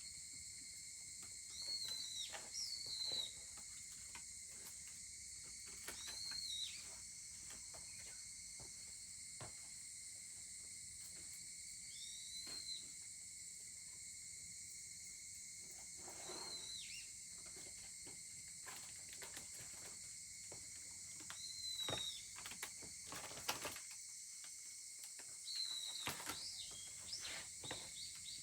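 Wood fire crackling with scattered small pops, under a steady high-pitched insect chorus. A short arched chirping call sounds about every four to six seconds, six times in all, and these calls are the loudest sounds.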